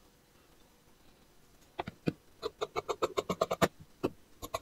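Tailor's scissors snipping through cotton fabric: a quick run of short, sharp snips starting about two seconds in and getting faster, then a pause and more snips near the end.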